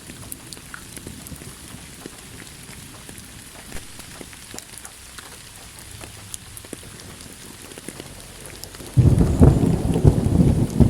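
Steady rain with scattered drop ticks, then about nine seconds in a sudden, loud, low thunderclap rumbles in.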